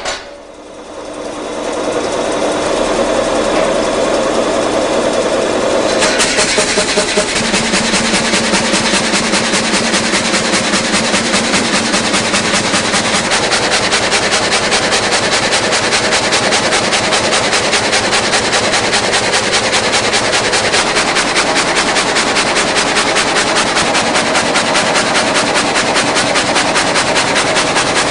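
Multi-blade rip saw running loud and steady. It builds up over the first couple of seconds, and from about six seconds in a fast, even clatter runs on top of the running noise.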